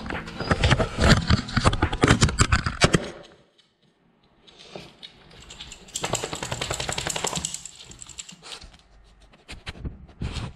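A puppy jostling a GoPro on the floor: a rapid clatter of close knocks and scrapes on the camera for the first three seconds, then, after a short hush, a couple of seconds of close snuffling and scratching as the dog noses at the lens, with a few more knocks near the end.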